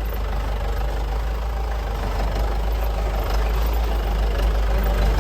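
4x4 jeep's engine running steadily at low speed, a deep low rumble with no change in pace.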